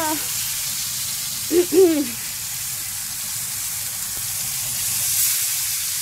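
Overheated cooking oil sizzling steadily in a frying pan. A short voiced sound, rising then falling, comes about one and a half seconds in.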